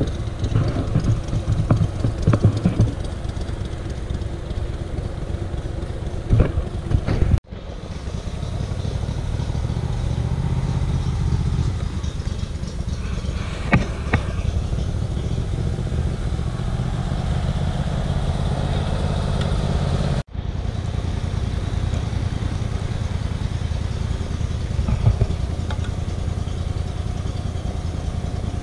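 Mud boat's surface-drive motor running steadily as the boat moves along the creek, with the sound cutting out abruptly twice.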